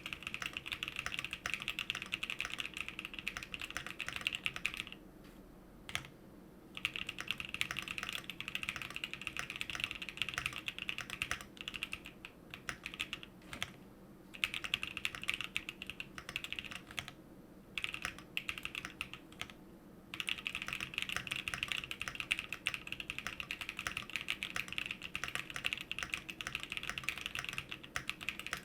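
Continuous fast typing on a custom 65% mechanical keyboard with Gazzew Boba LT linear switches, an aluminum plate, full foam and a PE foam mod. The dense run of key presses stops for brief pauses a few times, about five, twelve, seventeen and nineteen seconds in.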